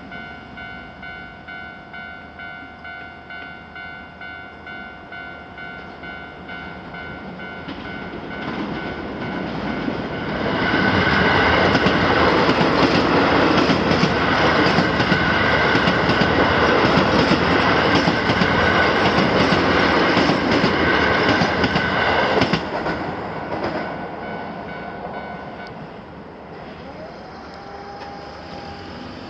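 Japanese level-crossing warning bell ringing in quick repeated dings, about two a second, while a Keio Line electric train passes. The wheel and motor noise builds from about eight seconds in, runs loudly for roughly twelve seconds, then fades. The bell stops a few seconds before the end.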